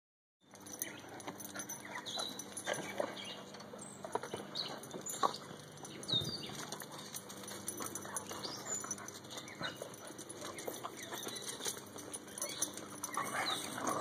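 Vizslas and a Weimaraner play-fighting on concrete: scuffling, and many short scattered clicks of claws and paws on the concrete, with some dog vocal sounds mixed in.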